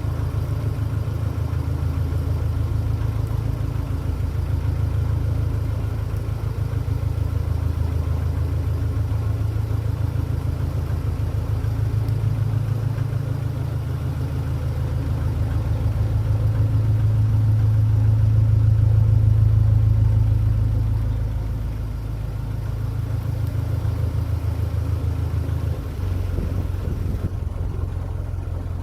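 Narrowboat's inboard diesel engine running steadily under way, a low, even throb that swells louder for a few seconds past the middle before settling back.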